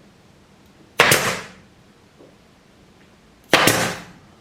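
Nail gun firing twice, about two and a half seconds apart, driving nails through crown molding into the wall; each shot is a sharp crack that dies away quickly.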